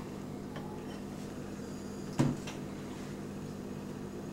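A single sharp knock about two seconds in, over a steady low hum.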